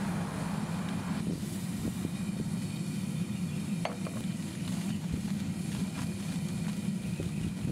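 Hot sand pouring from a steel stockpot into a metal bucket, a hiss that cuts off about a second in, followed by a few light taps and crinkles as aluminium foil is pressed down over the sand. A steady low drone runs underneath.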